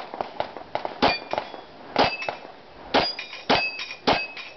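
Glock pistol shots at a steel-plate rack, five in about a second's rhythm that quickens near the end, each followed by the high ring of a struck steel plate.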